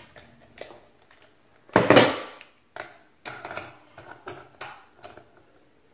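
Handling noise from a multimeter and its test leads: plastic clicks, knocks and rattles as the probes are pushed into a battery adapter's terminals, the loudest a short clatter about two seconds in, followed by several smaller clicks.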